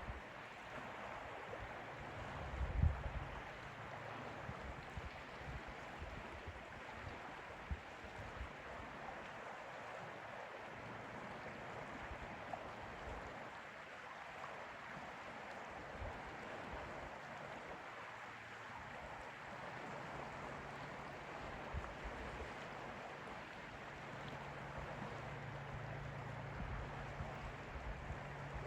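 Lake water lapping and rippling gently in a steady wash, with a few low thumps, the strongest about three seconds in. A faint low hum joins at about twenty seconds.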